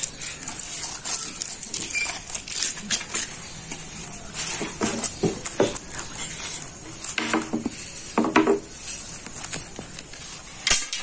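Butter on a fork rubbed over a flatbread on a metal tray: soft scraping with scattered clinks of the fork and tray.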